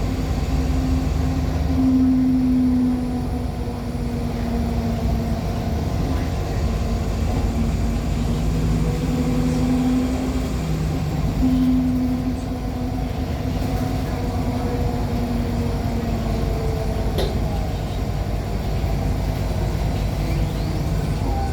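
Cabin sound of a NOVA LFSA hybrid articulated bus under way: the Cummins ISL9 diesel and Allison H50 EP hybrid drive give a steady low rumble with a hum that drops out and comes back several times. A brief high sweep cuts across about seventeen seconds in.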